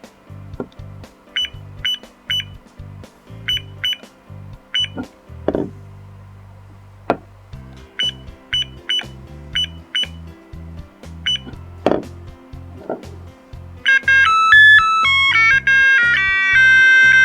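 Digital alarm clock giving short high key beeps as its buttons are pressed, with a few soft knocks, then from about 14 s a loud electronic beeping melody: the clock's alarm tune playing as the alarm music is chosen.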